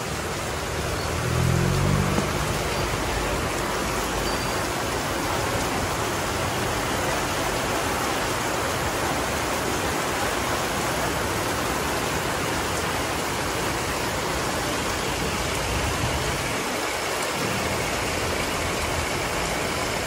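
Heavy rain pouring steadily on a street, an even hiss. A low rumble swells briefly about a second in.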